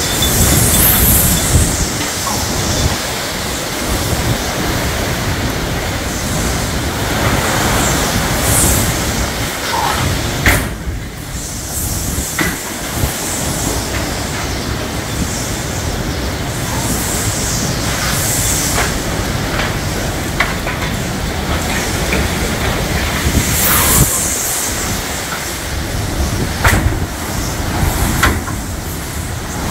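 Hurricane wind and heavy rain: a loud, unbroken rush with a low rumble beneath. Hissing gusts of rain surge every several seconds, and a few sharp clicks stand out.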